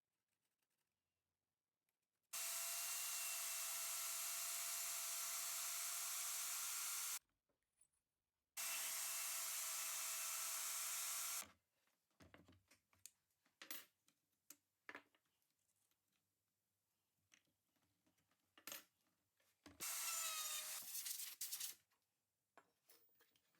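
An electric power tool running at steady speed with a steady high whine over its noise, in two stretches of about five and three seconds that stop abruptly. Then scattered knocks and clicks of wood being handled, and near the end a short run of the tool whose whine drops in pitch as it winds down.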